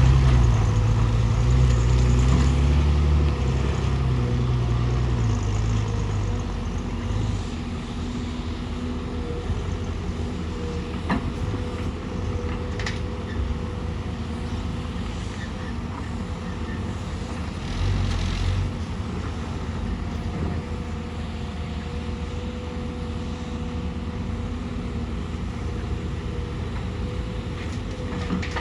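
Excavator's diesel engine running, working hard for the first six or seven seconds and then settling to a lower, steady run, with a few sharp knocks in between.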